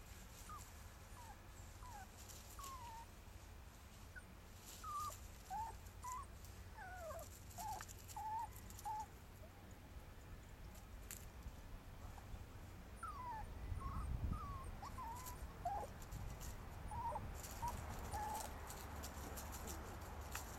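Rat terrier whining in short, high, sliding whimpers, in two runs with a pause between. Dry leaves crackle underfoot.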